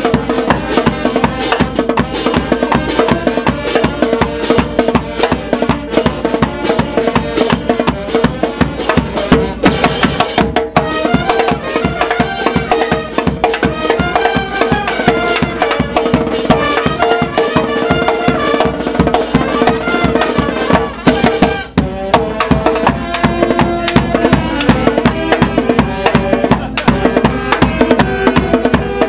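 Brass band of trumpets, trombones and saxophone playing a lively tune over a steady bass drum beat, with brief breaks about ten and twenty-two seconds in.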